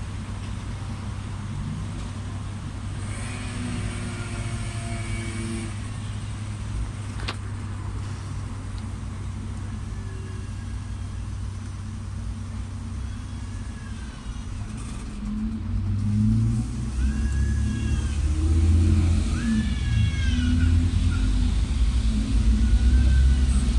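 Electric tyre inflator running steadily as it pumps a repaired tyre up towards 2.5 bar, the pressure climbing slowly. About 16 seconds in, a louder low rumble rises over it, and short high chirps come and go.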